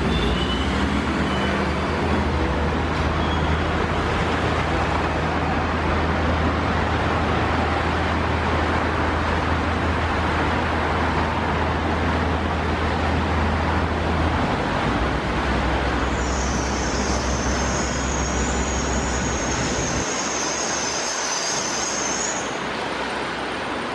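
Caterpillar 3456 diesel of a CAT 385 long-front demolition excavator running steadily under a constant rushing noise. Its low drone dips slightly in pitch about two-thirds of the way through and stops about 20 seconds in. A high, steady whine sounds for several seconds near the end.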